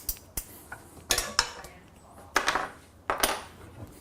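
Metal parts and tools clinking and clattering in four short bursts as a steel band saw table is bolted together.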